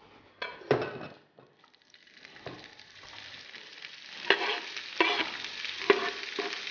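Food sizzling in a hot pan of oil and butter, the hiss building up from about two seconds in, with a few sharp knocks and clinks of a utensil against the pan.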